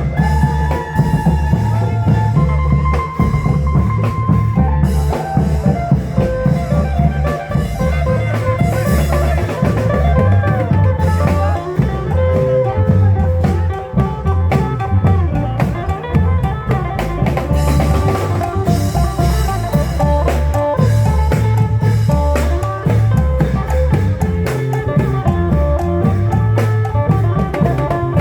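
Thai Isan klong yao long-drum band playing a lively procession rhythm: a heavy, steady drum beat with a melodic lead line over it that bends in pitch.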